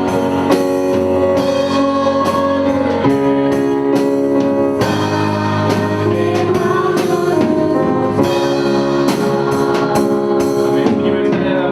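Church praise band playing a gospel song with singing: sustained chords from keyboard and instruments over a drum kit.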